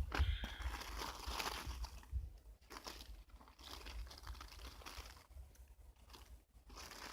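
Crinkling and rustling of handled packaging, louder in the first couple of seconds, over a low rumble.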